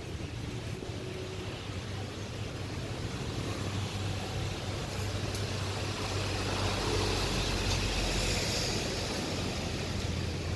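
A steady low engine drone with a hiss of wind and surf over it, swelling louder from about six seconds in to about nine seconds.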